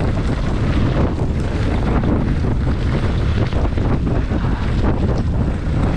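Wind buffeting the microphone of an action camera on a mountain bike descending a dirt trail at speed, over a steady rumble of tyres on the ground and the bike rattling with irregular knocks.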